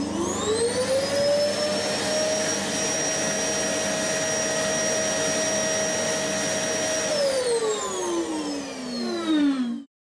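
Vacuum cleaner switched on and off: its motor whine rises over the first second or so to a steady pitch, holds for about six seconds, then falls away as it winds down and cuts off just before the end.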